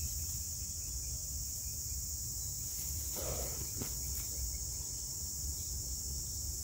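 Steady, high-pitched chorus of insects such as crickets, over a low rumble, with one brief faint noise a little after the middle.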